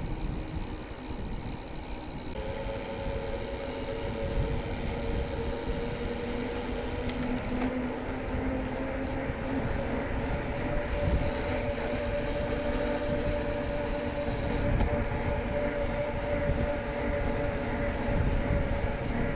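Bicycle being ridden: wind buffeting the microphone over a steady hum from the wide tyres rolling, the hum's pitch drifting slightly as the speed changes.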